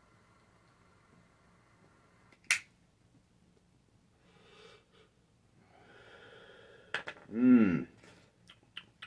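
A lighter held to a joint, its flame hissing faintly for about two seconds before a sharp click. Smoke is exhaled in soft breaths, and about seven and a half seconds in there is a short, loud throaty vocal sound falling in pitch.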